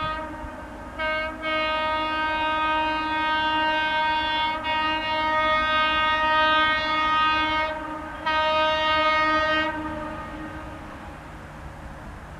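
Horn of an Indian Railways WAG-9H electric locomotive sounding as it approaches: one blast ends about half a second in, then a long blast lasts some seven seconds, then a shorter one stops near ten seconds. A low train rumble runs under the horn and fades after it.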